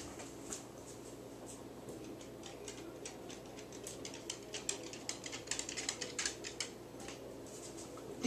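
Faint room tone with a low steady hum and scattered light clicks and taps, thickest in the second half, from someone moving about out of sight.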